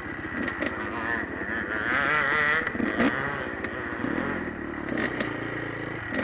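Dirt bike engines running at idle close by, with one revved up and down briefly about two seconds in.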